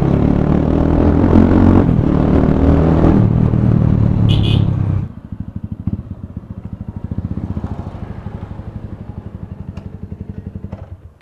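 Bajaj Pulsar 220F's single-cylinder engine running under way, then about five seconds in dropping to a quieter, evenly pulsing low-speed chug as the bike rolls in, and stopping near the end. A brief high squeal sounds about four and a half seconds in.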